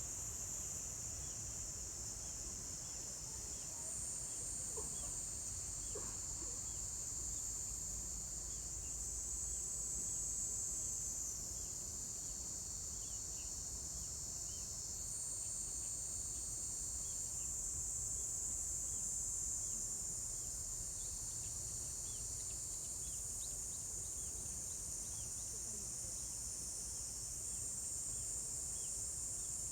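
Insects calling in a continuous high, steady trill, several voices overlapping so that the pitch steps up or down every few seconds as one stops and another starts.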